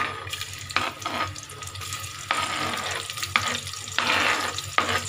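Sliced onions dropping into hot oil and ghee in a pressure cooker and sizzling, the hiss starting about a third of a second in, with a few sharp knocks.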